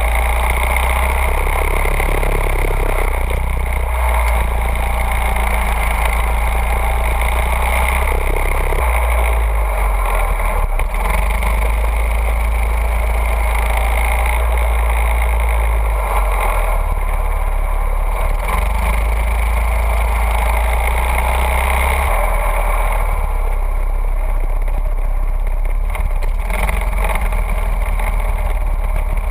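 Go-kart engine running steadily, heard from a camera mounted on the kart as it laps the track.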